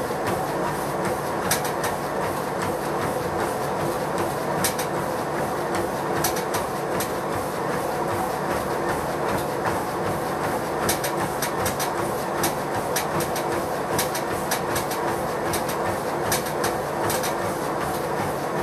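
A treadmill runs under a runner: the belt and motor make a steady rumble, with rhythmic footfalls landing on the deck.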